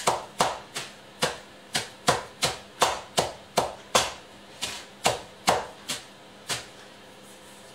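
Knife chopping coarsely grated carrots: a run of sharp knocks, about two a second, that stops about six and a half seconds in.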